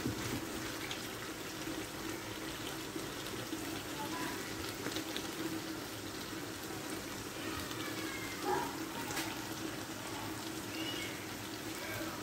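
Tomato-based tilapia stew in a frying pan, simmering with a steady wet bubbling and sputtering, while a wooden spoon stirs through the thick sauce.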